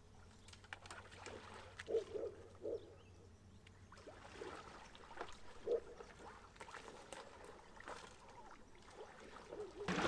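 Faint paddling of an inflatable kayak on still water: a few soft splashes and gurgles as the paddle dips, with light drips and small knocks in between.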